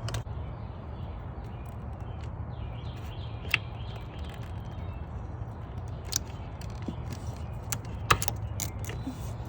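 A few sharp plastic clicks and small rattles as a lock on the purge valve line is worked loose by hand, over a steady low hum.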